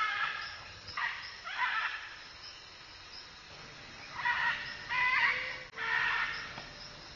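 Scarlet macaws squawking: three loud calls in the first two seconds, then three more from about four seconds in.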